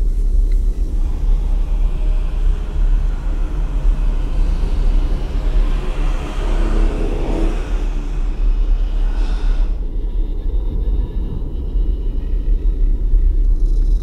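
Battery-powered BRIO toy steam locomotive running along wooden track close to the microphone: a steady low rumble of its motor and wheels. The rumble is loudest about six to eight seconds in, as the engine passes nearest.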